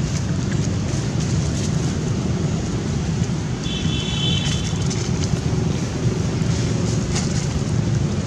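Steady low rumbling background noise. About three and a half seconds in, a brief high-pitched call is heard, lasting about a second.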